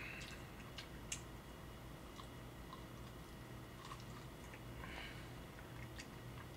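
Faint chewing and biting on a barbecue rib: scattered small clicks and smacks of meat being torn and chewed, with a brief rustle about five seconds in.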